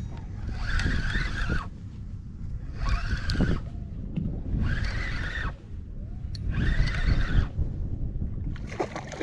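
A fishing reel being cranked in four spurts of about a second each, roughly every two seconds, with a gear whine, as a hooked fish is reeled up. Steady wind and water noise sit under it.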